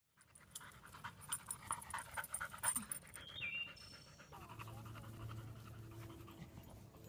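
A yellow Labrador retriever panting hard after running, with quick, regular breaths at about three a second through the first half.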